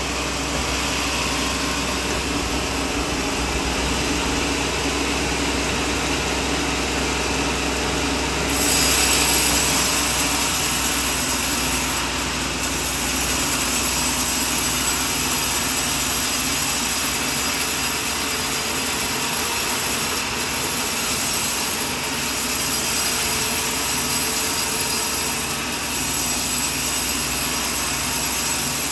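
Sawmill saw running and cutting through a coconut trunk, a steady dense machine hiss. It gets louder and hissier about eight seconds in, with a few brief dips later on.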